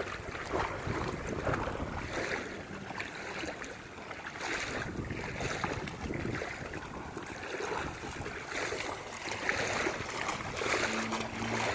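Wading through shin-deep floodwater: irregular sloshing and splashing of water against legs with each step.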